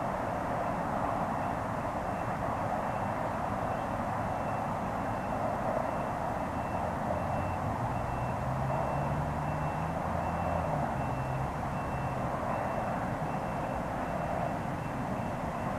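Steady distant rumble of an approaching NJ Transit train led by an ALP-46 electric locomotive. A low hum comes in about halfway through, steps up in pitch and fades a few seconds later.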